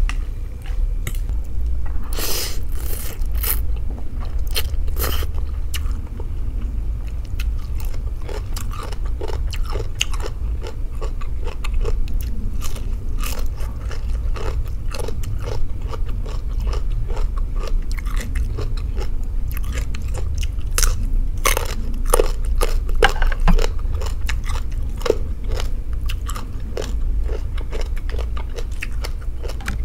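A person chewing and crunching mouthfuls of rice noodles, cooked shrimp and raw vegetables close to the microphone, with many short crisp bites and wet mouth sounds over a steady low hum.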